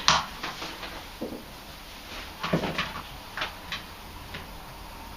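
A few scattered light clicks and knocks from handling the old hot tub control panel and its cable, the loudest about two and a half seconds in.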